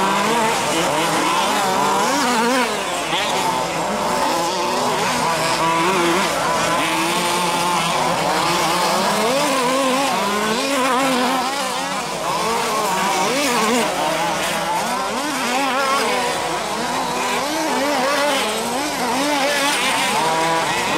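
Several large-scale RC off-road cars' small two-stroke engines revving up and down together as they race, their pitches rising and falling and overlapping throughout.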